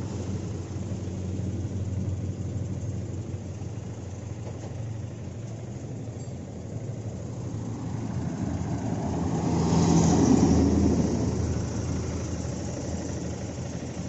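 Heavy diesel truck engine idling steadily, with a louder rush of vehicle noise that builds and fades about ten seconds in.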